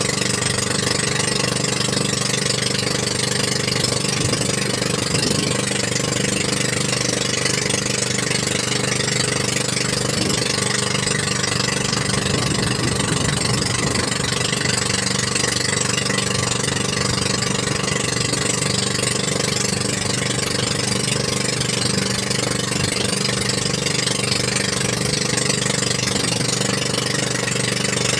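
Outrigger bangka's boat engine running steadily while underway, with a steady hiss of moving air and water over it.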